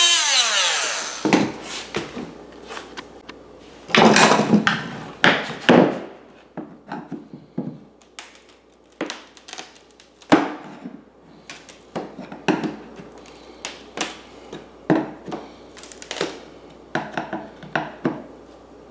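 Irregular wooden knocks, taps and short scrapes of hand tools working on oak flooring, with a denser run of rasping strokes about four to six seconds in.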